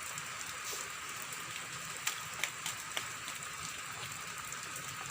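Steady rain falling, an even hiss with scattered sharper drips and splatters.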